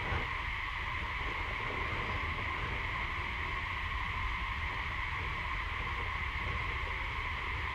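Steady insect drone, one unbroken high tone with a second, lower one beneath, over a low rumble.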